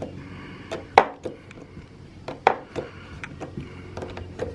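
Irregular sharp metal clicks and clinks of a socket wrench being worked onto a small screw, with two louder knocks about a second in and halfway through.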